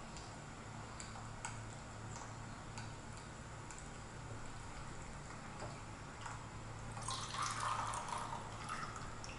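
Tea being poured from a porcelain gaiwan into a glass pitcher, a short splashing trickle about seven seconds in that lasts under two seconds.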